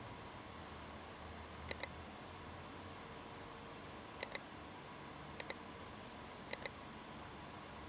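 Four sharp double clicks, the two clicks of each pair a split second apart, spaced one to two seconds apart over a steady low hiss.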